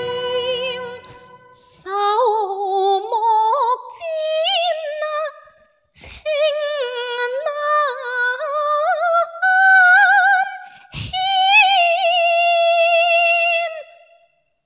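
Unaccompanied Cantonese opera singing in the high zihau (female-role) voice: one ornamented, wavering melodic line, with the backing music dropping out about a second in. The line breaks off briefly about six seconds in and again near the end.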